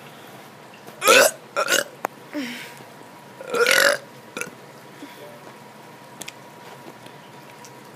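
A kid burping on purpose: two short burps about a second in, then a longer, loud burp about three and a half seconds in.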